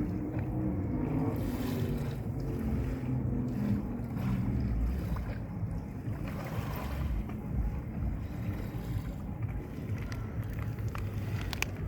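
Boat under way: a steady low rumble with wind buffeting the microphone.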